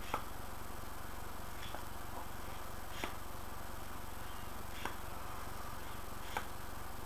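Soft lip smacks and pops at irregular intervals, about half a dozen, from puffing on a calabash pipe, over a steady low electrical hum.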